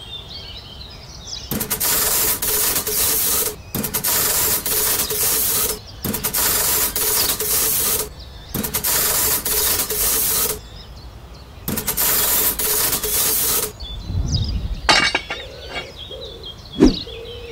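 Small welding tool crackling and hissing at the joints of a miniature metal-bolted roof frame, in five bursts of about two seconds each with a steady hum under them. A few sharp knocks follow near the end.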